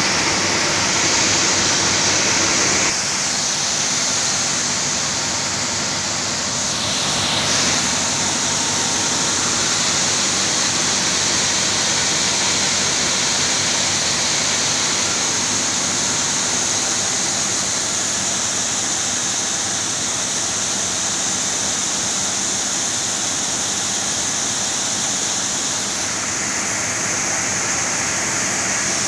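Rice mill machinery running steadily: a continuous loud hiss over a low hum, with the hum dropping slightly about three seconds in.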